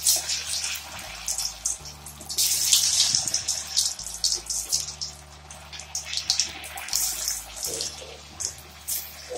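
Boiled potato halves frying in hot oil: a steady sizzle with crackling, swelling into louder spitting bursts a couple of times as pieces go into the oil.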